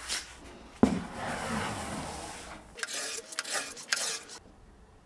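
A wooden board knocks down onto contact-cemented wood veneer about a second in and is rubbed hard across it with a scraping sound, then a few sharp knocks and scuffs as it is shifted. The rubbing presses the veneer down so the contact cement on both surfaces bonds.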